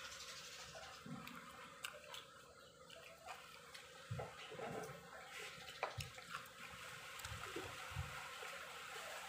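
A person chewing vegetables: faint, irregular wet crunches, clicks and smacks.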